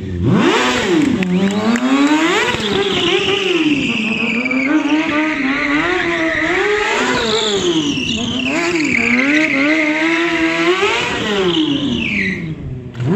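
Sport motorcycle engine revving up and down again and again under stunt riding, with tyre squeal rising and falling over it.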